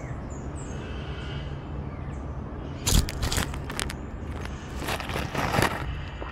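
A steady low rumble, then from about three seconds in a series of loud, irregular scrapes and crackles: the small action camera's body being jostled and scraped over gravelly sand, and tipping over.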